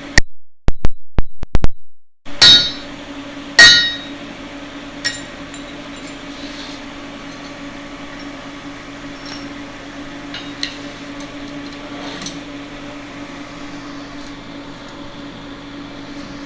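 Blacksmith's hammer striking steel on an anvil: a quick run of about eight ringing blows in the first four seconds and one lighter tap, then a steady low hum with a few faint clinks.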